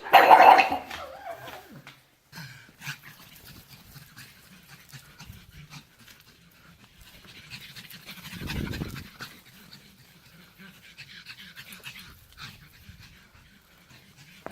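Pug panting, opening with a loud short burst of sound in the first second, then quieter breathing that swells again about eight seconds in.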